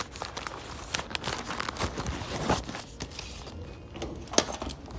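Irregular rustling with scattered clicks and knocks, and one sharper tap near the end.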